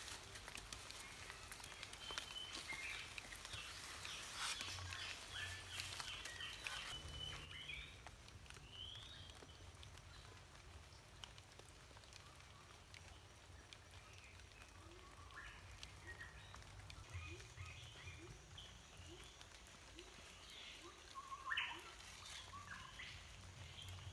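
Birds chirping in short calls, faint, with clicks and scraping from trowels working mortar on concrete blocks in the first several seconds.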